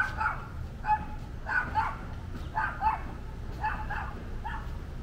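A dog barking repeatedly, about once a second, the barks often coming in quick pairs, over a low steady street hum.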